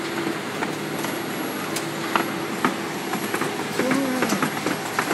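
Shoe factory machinery running: a steady mechanical hum and noise with scattered, irregular clicks and knocks.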